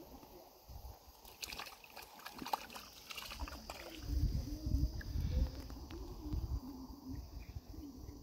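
Crackling rustle of hands handling a freshly caught fish among grass for about two seconds, starting a second or so in, followed by a low rumble.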